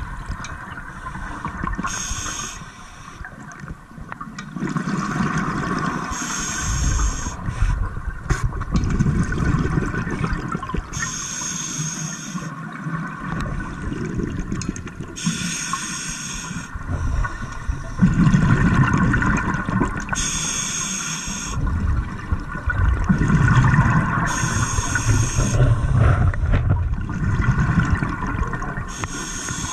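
Scuba diver breathing through a regulator: a short hiss with each inhalation about every four to five seconds, alternating with the bubbling gurgle of exhaled air.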